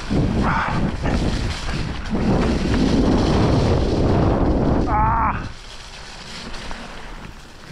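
Mountain bike riding down a wet forest trail: a loud rumble of wind buffeting the microphone and the tyres and bike rattling over rough ground. It eases off about five and a half seconds in. Just before that there is a short high-pitched wavering sound.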